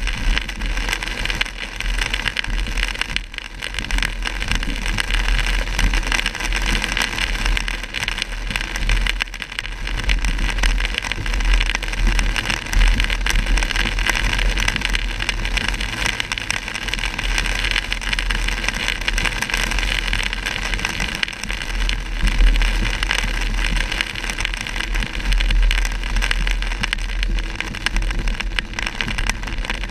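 Steady noise inside a car driving through heavy rain on wet, flooded roads: rain on the car and tyre spray over a low road and engine rumble.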